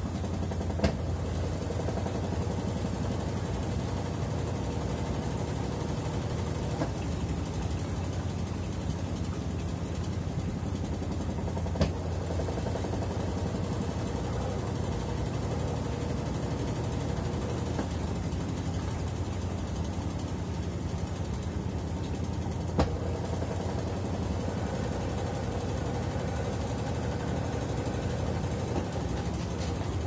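Consul CWE13AB 13 kg top-load washing machine spinning its basket of laundry, a steady low hum. A sharp click sounds three times, about every eleven seconds.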